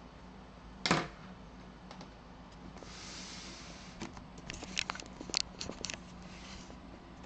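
Handling noise: a single sharp knock about a second in, then a short hiss and a run of light clicks and taps as the camera is moved in closer.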